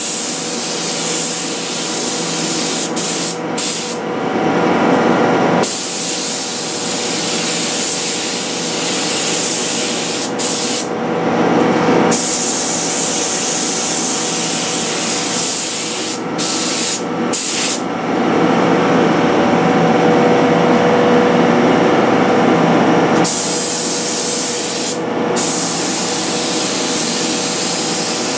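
Compressed-air paint sprayer hissing in long bursts, cutting out and starting again several times as the trigger is released and pulled to control the flow. A steady machine hum with a constant pitch runs underneath.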